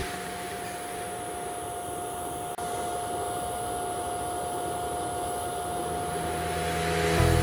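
TIG (GTAW) arc welding the first fill pass on carbon steel pipe: a steady hiss with a faint constant tone underneath. It breaks off for an instant about two and a half seconds in.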